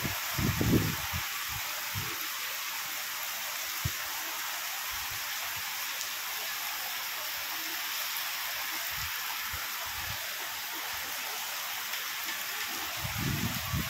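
Steady rain falling, an even hiss without a break. Brief low rumbles on the microphone come in the first second and again near the end.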